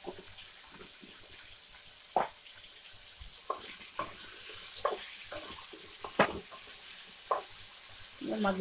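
Sliced brinjal frying in oil in a metal kadai with a faint steady sizzle. A spatula stirs it, scraping and knocking against the pan about a dozen times at irregular moments.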